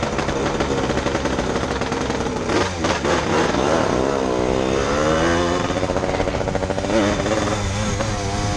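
Yamaha RD135 two-stroke motorcycle engine under way. The revs drop about three seconds in, then climb steadily as the bike pulls away, and dip and rise again near the end with a gear change.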